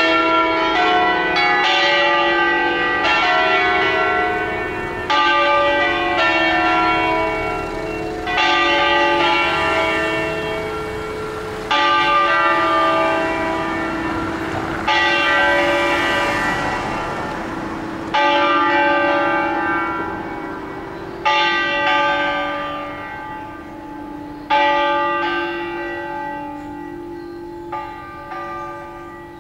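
Bronze church bells cast by Angelo Ottolina in 1947 ringing a solemn concerto of five bells, tuned in A. Loud struck strokes come every few seconds, each left to ring out and fade; towards the end the strokes grow sparser and weaker as the ringing dies down.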